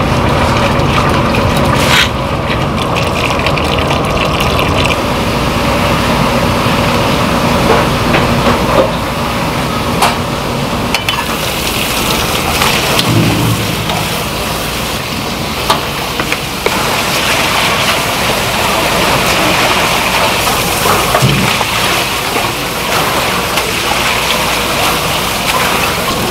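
Kitchen water sounds: a large pot of noodles at a rolling boil, then water pouring and a tap running as the noodles are drained and rinsed in a metal strainer, with a few sharp clanks of metal.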